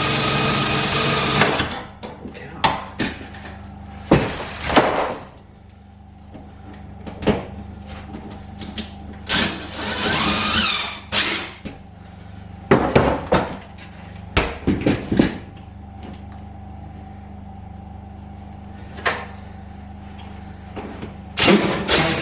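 A power drill runs for about a second and a half and stops. Then come scattered knocks, clinks and rustling as tools and screws are handled, over a steady low hum.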